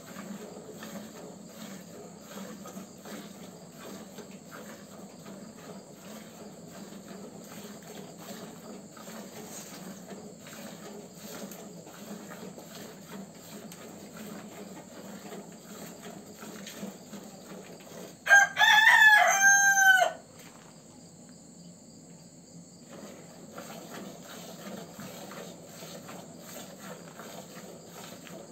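Cow being milked by hand: repeated squirts of milk hitting the milk in a plastic bucket, over steady cricket chirring. About two-thirds of the way through, a rooster crows once, loudly, for about two seconds.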